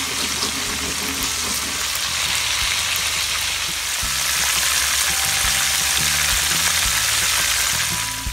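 Sausages frying in hot oil in a pan: a steady, dense sizzle and crackle of spattering fat.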